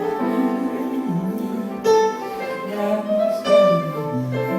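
Slow instrumental music with sustained string-like tones and piano; the notes change every second or so.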